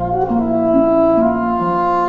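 Instrumental background music of slow, held notes.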